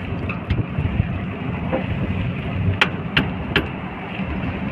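Car driving, heard from inside the cabin: a steady low rumble of engine and road noise, with three sharp clicks in quick succession past the middle.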